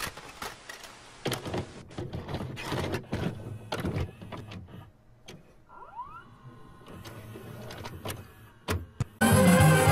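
Video cassette recorder taking in and loading a VHS tape: a series of clicks and clunks with a motor whirring. Music starts suddenly near the end.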